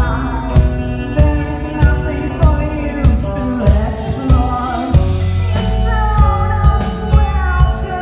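Live rock band playing, with a steady drum beat and melodic lines gliding between notes; a heavier bass comes in about five seconds in.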